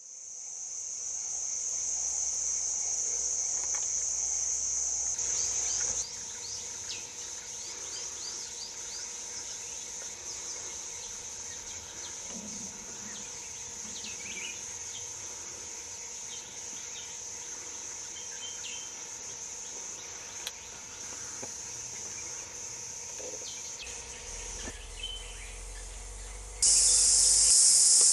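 A steady, high-pitched drone of forest insects. It is loud at first, drops back after about six seconds and turns loud again near the end, with scattered short bird chirps over it in the middle.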